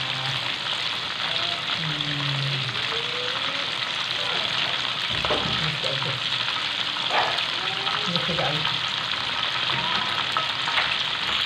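Chicken pieces deep-frying in hot oil in a wok: a steady, bubbling sizzle as tongs turn the pieces, with two brief knocks about five and seven seconds in.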